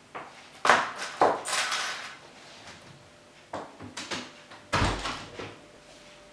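Scattered clicks and knocks of household handling, then a thud about five seconds in as a glazed back door is pushed shut.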